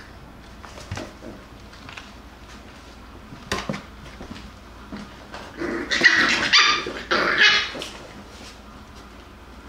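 Jackabee (beagle–Jack Russell cross) puppies barking while they wrestle. There are a few small yips and scuffles, then a run of loud barks about six to eight seconds in.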